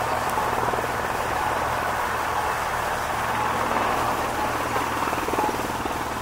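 Sikorsky VH-3D Sea King helicopter (Marine One) flying in overhead, its rotor beating rapidly and evenly with the turbine engines running, at a steady level.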